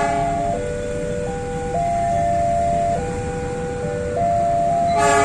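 Railway level-crossing warning alarm sounding: electronic tones stepping back and forth between a few pitches in a repeating pattern, with a bell-like strike at the start and again about five seconds in. It signals an approaching train.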